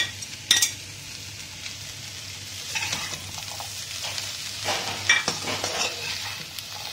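A metal spatula stirring shredded chicken into frying vegetables in a wok, scraping and clacking against the pan, over a light sizzle. There are a few sharp knocks near the start and busier scraping in the second half.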